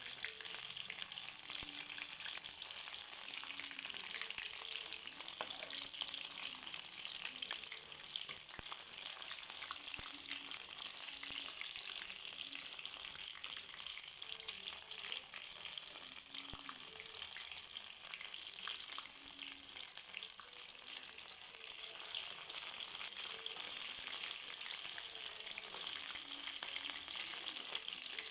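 Breaded chicken pieces deep-frying in hot oil: a steady, dense sizzle with many fine crackling pops.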